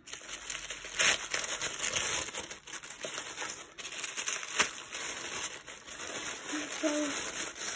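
Tissue paper crinkling and rustling as a wrapped parcel is unwrapped by hand, with one sharp click about four and a half seconds in.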